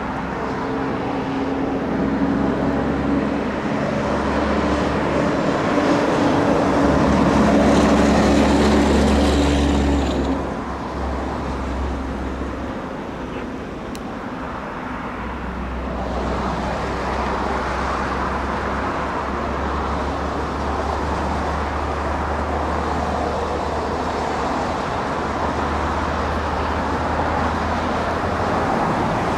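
Diesel-hauled freight train passing: for about the first ten seconds the locomotives' engines drone with steady low tones over a heavy rumble, then a continuous, even rumble of freight cars rolling by.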